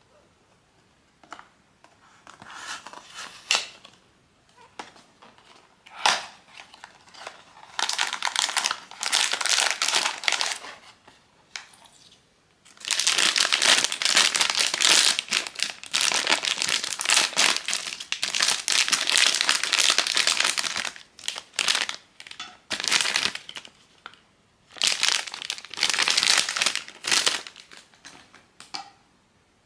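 Blind-box packaging crinkling as it is handled and opened, in irregular bursts with one long stretch of about eight seconds in the middle.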